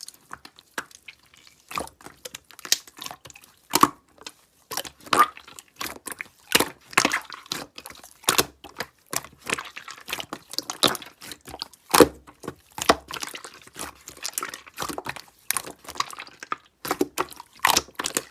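Slime being squished and poked by hand, a continual run of irregular wet clicks and pops.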